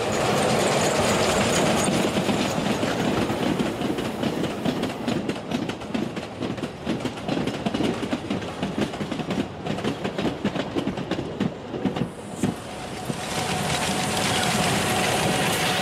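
HOe-scale model train running along its track, with rapid, irregular clicking of the wheels over the rail joints. The clicking thins out near the end as a faint steady tone comes in.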